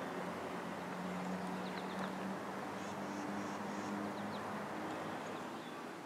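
Early-spring woodland ambience: a steady background hiss and low hum with faint, scattered bird chirps, and a quick series of four high bird notes about three seconds in.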